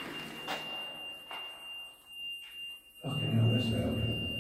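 Ghost-hunting trigger alarm sounding one steady high-pitched electronic tone, set off by something touching or nearing it. A louder low rumble joins about three seconds in.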